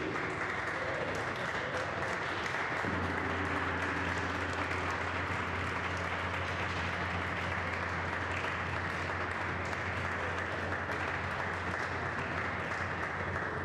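A small group applauding with steady, even clapping. About three seconds in, a steady low hum joins the clapping and carries on under it.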